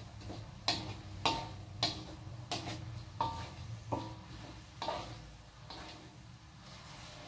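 Metal spatula knocking and scraping against a metal wok as fried tempeh and peanuts are stirred: a series of sharp clinks, some with a short ring, roughly one every two-thirds of a second, dying away after about five seconds. A low steady hum runs underneath.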